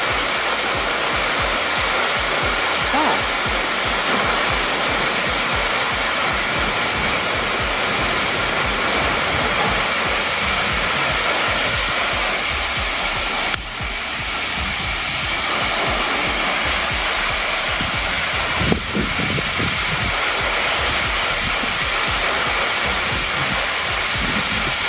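Steady rushing roar of the Wli waterfall, dipping briefly about halfway through.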